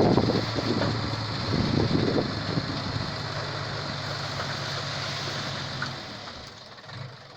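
An engine running steadily with a low hum, which fades and stops about six seconds in.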